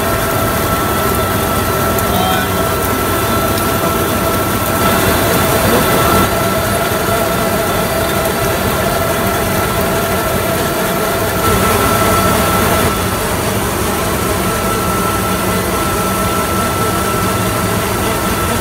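Tractor-drawn Vlaming double-net tulip bulb planter and its tractor at work: a steady mechanical running noise with a constant high whine, briefly a little louder twice.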